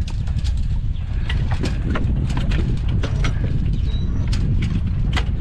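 Strong wind buffeting the microphone in a steady low rumble, with irregular sharp knocks and slaps, several a second.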